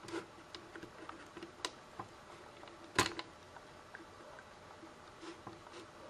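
Scattered small clicks and taps of a replacement Blu-ray lens deck and PS3 Slim drive parts being handled and pressed into place, with one sharper click about three seconds in.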